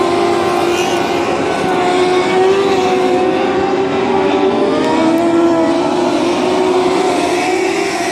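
Dwarf race cars' engines running at racing revs as the pack circles a dirt oval. It is a loud, steady mix of several engines whose pitch wavers up and down as they go through the turns and down the straights.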